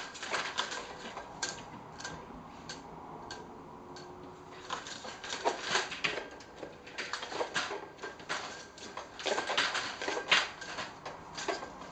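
Venetian blind slats clattering and rattling as a cat paws and pushes at them: irregular sharp clicks, a few at first, then a busy run of clatter from about five seconds in until near the end.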